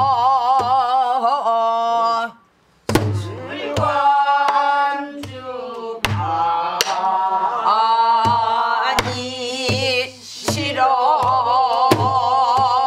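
A woman sings a Korean Namdo folk song in full pansori-style voice with a wide, shaking vibrato, beating out the rhythm herself on a buk barrel drum. There are about a dozen drum strokes under the held notes, and a short breath pause a little over two seconds in.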